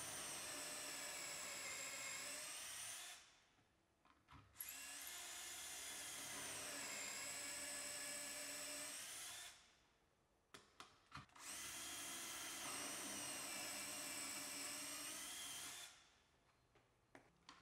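Cordless drill boring holes through the steel sleeves of a drilling jig into a drawer front panel: three runs of a few seconds each, the motor's whine sagging in pitch as the bit cuts and rising again, with short pauses and a few small clicks between runs.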